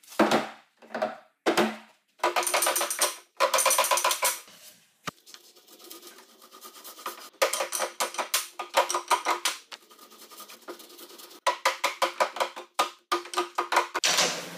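Percussive music: a quick clicking beat with a few pitched notes, stopping and starting several times with short pauses.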